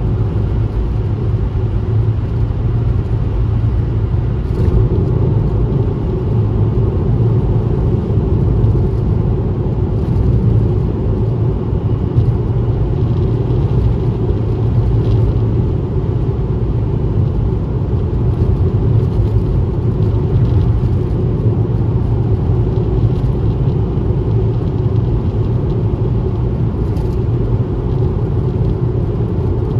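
Steady low rumble of a car driving at highway speed: engine, tyre and road noise, with a few faint ticks now and then.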